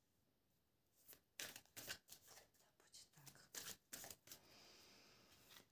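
Tarot cards being shuffled and handled by hand: a quiet, irregular string of short crisp slaps and rustles beginning about a second in.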